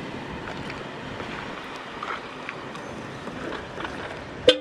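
A car driving slowly over a railway level crossing close by, its engine and tyres heard under steady wind noise on the microphone. A single sharp knock comes near the end.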